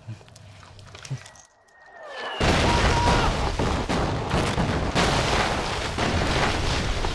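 An incoming artillery shell whistles down in a falling pitch. About two and a half seconds in, a sudden loud explosion breaks out, and a dense battle din of further blasts and rapid gunfire runs on from there.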